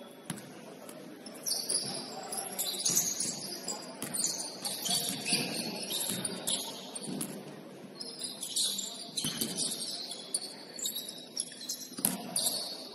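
Basketball shoes squeaking on the court floor during play, many short high-pitched squeals coming and going, with a few sharp knocks among them.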